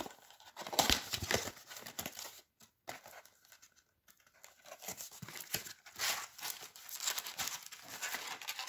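Foil wrapper of a trading-card pack being torn open and crinkled by hand, in irregular rustling bursts with a short pause about a third of the way in.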